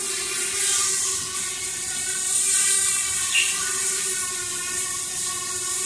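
Small quadcopter's four brushless motors and carbon fiber props hovering: a steady whine with a hiss of rushing air, rising and falling a little in loudness.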